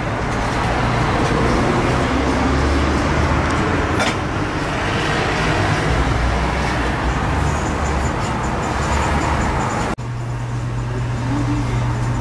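Steady rushing noise with a low rumble. About ten seconds in it cuts off abruptly and gives way to a steadier low hum.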